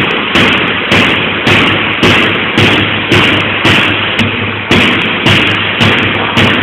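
A large plywood box being struck hard over and over, about two blows a second, each a loud wooden knock with a short ring after it.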